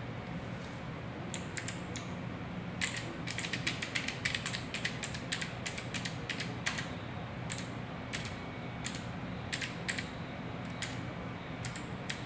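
Keys of a mechanical keyboard being pressed: sharp, irregular clicks, a quick flurry from about three seconds in to about six seconds, then scattered single presses.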